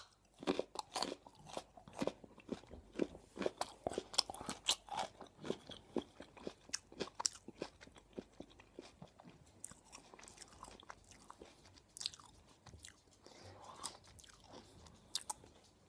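A bitten-off piece of raw carrot being chewed close to the microphone. Many sharp crunches come thick and fast in the first half and thin out in the second.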